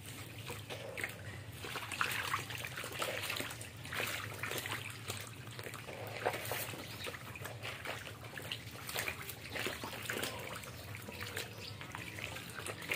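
Shallow water trickling and splashing irregularly, with many small splashes among frogs in a shallow tank.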